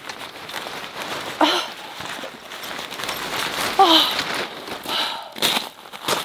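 Tent fabric rustling and crumpling as it is bunched up while a pole is forced through its sleeve, with two short strained sighs or groans of effort, the louder one about four seconds in. A few footsteps crunch on gravel near the end.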